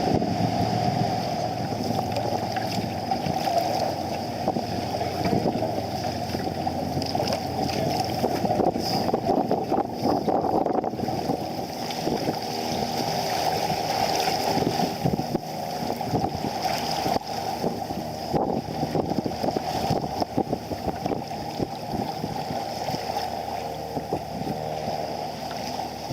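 Water rushing and sloshing along a sailing kayak's hull, with wind buffeting the microphone.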